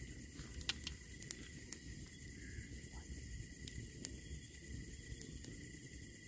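Faint steady high drone with a dozen or so short light clicks and taps scattered through it, from a small battery camping lantern being handled, switched on and hung inside a nylon tent.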